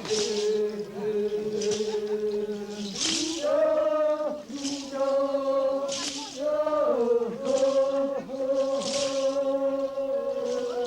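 Men's ritual chanting in long held notes that shift pitch every second or so, several voices together, with a short hiss about every one and a half seconds.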